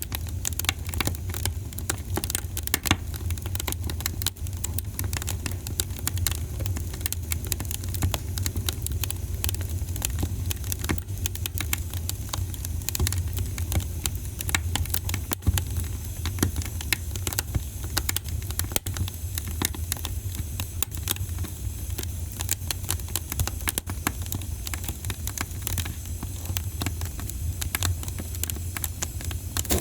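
Wood fire crackling in a fireplace: dense, irregular pops and snaps over a low, steady rumble.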